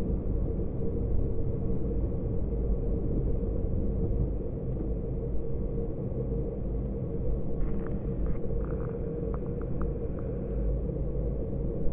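Aero L-29 Delfin jet trainer in the climb just after takeoff: a steady low rumble of its single turbojet and the airflow, with a constant hum. A few faint clicks come about eight seconds in.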